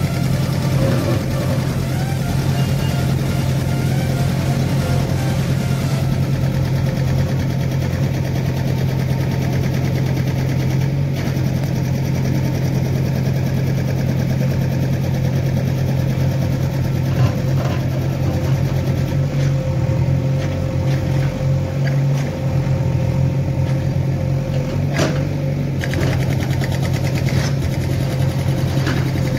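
JCB 3DX backhoe loader's diesel engine running steadily under load while the backhoe bucket digs, with a few faint knocks.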